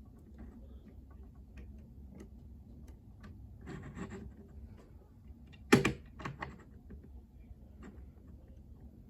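Small plastic and die-cast toy parts being handled and worked: scattered light clicks, a short rustle about four seconds in, then a sharp click near six seconds followed by a couple of smaller ones. These are the plastic spray arms of a toy crop sprayer being forced back into place.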